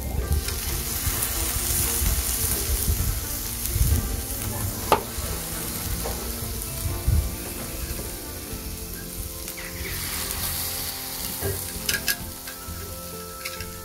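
Marinated kuşbaşı meat skewers sizzling on the hot perforated plate of a lava-stone gas grill as they are laid down one after another, with a few sharp metallic clicks as the steel skewers are set down. The sizzle is the sign that the grill is hot enough to cook on.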